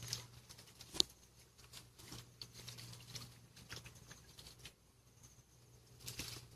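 Sticks, roots and dead leaves crackling and rustling irregularly as hands dig through a tangle of debris at a muddy bank, with a sharp snap about a second in and another burst of crackling near the end.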